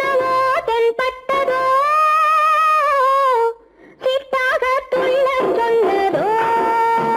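Old Tamil film song: a woman's high voice sings long held notes that slide and waver, with sharp percussion strikes near the start. The singing breaks off briefly about three and a half seconds in, then goes on.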